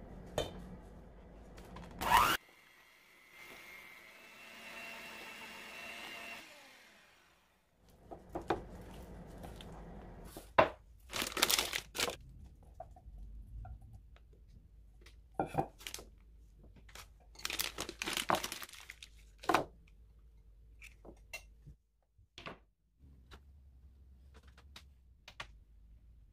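Kitchen handling noises from making buttercream: a spatula scraping and stirring in a stainless steel mixing bowl, with knocks and clicks of bowls and utensils on a wooden board. About three seconds in, a small motor whirs steadily for a few seconds, then fades out.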